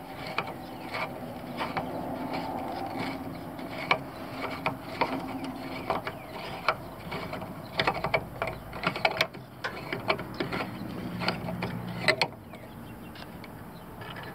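The threaded canister of an oil catch can being twisted off its cap by hand: threads rubbing and grinding, with many small clicks and a sharper click near the end.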